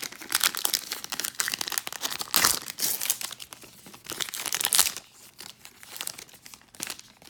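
Wrapper of a 2019 Topps Heritage baseball card pack being torn open and crinkled. It is a dense crackle for about five seconds, then quieter and sparser.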